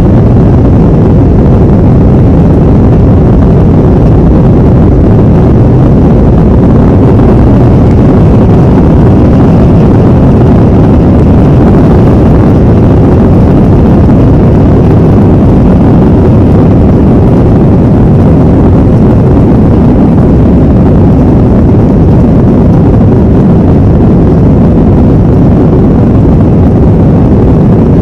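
Airbus A321 jet engines running at high power, heard as a loud, steady, even rumble with no change through the whole stretch.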